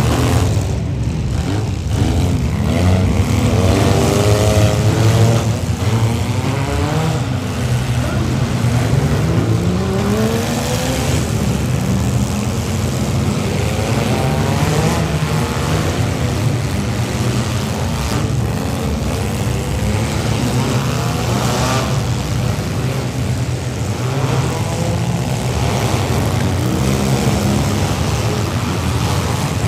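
Several demolition-derby minivan engines running together, revving up and down over a steady deep drone.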